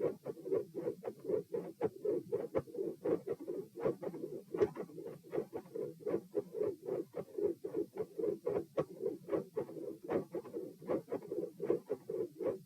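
Human heartbeat recorded at the chest of a supine subject: regular lub-dub beats, about three thumps a second, with a continuous murmur between them of the mid-systolic kind this recording series mostly shows.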